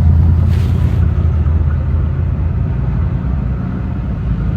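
Steady low rumble of a vehicle, with a brief hiss-like noise about half a second in.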